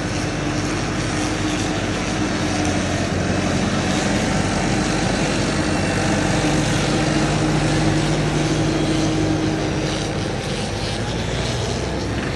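Motor vehicle engine running steadily, a continuous drone with a hiss of road or wind noise over it, swelling a little in the middle and easing slightly near the end.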